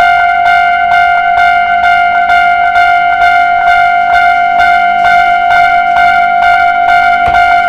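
Japanese railway level-crossing alarm ringing its "kan-kan" bell, struck about twice a second, each strike ringing on as a steady tone.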